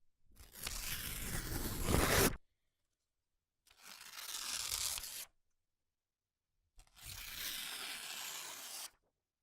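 Sheets of 20 lb printer paper torn by hand, three separate rips: a two-second tear that grows louder toward its end, a shorter one of about a second and a half, and a steady two-second tear near the end.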